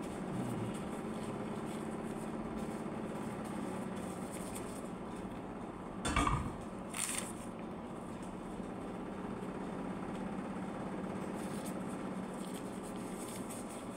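A steady low machine hum, with a single knock about six seconds in and a short rustle just after.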